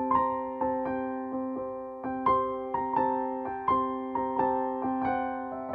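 Background music: a gentle keyboard melody of single struck notes, roughly two a second, each fading away, over a steady held chord.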